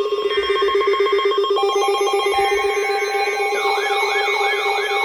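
Layered electronic alert tones: a rapidly pulsing ringing tone under several steady higher tones, joined about three and a half seconds in by an electronic siren sweeping up and down two to three times a second.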